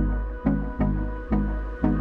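Background music, the instrumental intro of a song, with a steady beat of about two notes a second over sustained chords and bass.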